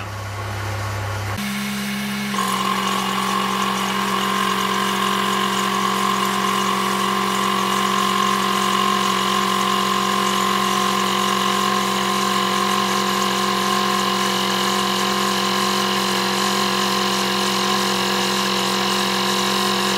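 Jeep Wrangler engine idling at about 750 rpm while its engine-driven on-board air compressor runs under load, charging a 6-gallon air tank toward 140 psi. A steady high whine sets in about two seconds in and holds level over the engine's idle.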